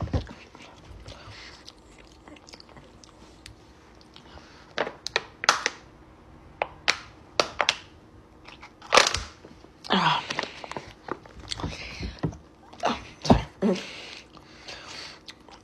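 Drinking from a thin plastic water bottle: a run of sharp clicks and crackles from the bottle and its cap, with swallowing and mouth sounds in between.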